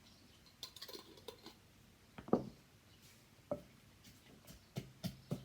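Pestle knocking in a mortar as peanuts are crushed into a Thai papaya salad: a light rattle just under a second in, one loud knock a little past two seconds, another about a second later, then a quicker run of knocks near the end.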